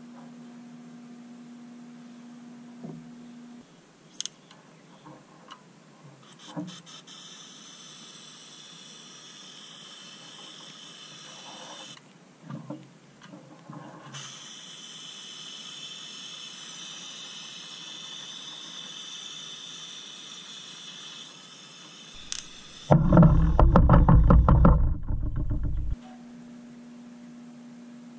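Steady electric hum, then a long hiss from a spray gun in two stretches with a short pause between them. Near the end there is a loud rumbling rush lasting about three seconds, and then the hum comes back.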